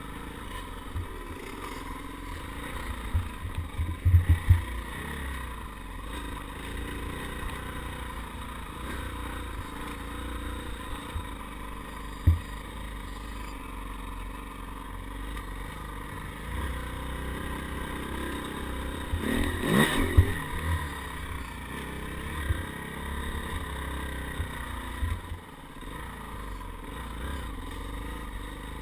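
Dirt bike engine running steadily while riding a rough dirt trail, with occasional thumps and rattles from the bumps. The loudest clatter comes about twenty seconds in.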